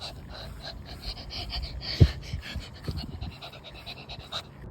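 Quick, rapid panting, broken by a single loud thump about two seconds in.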